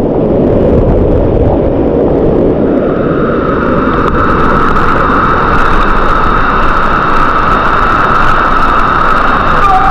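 Loud, steady rushing of a waterfall's falling water close to the microphone. About three seconds in, a steady high hiss-like tone joins it.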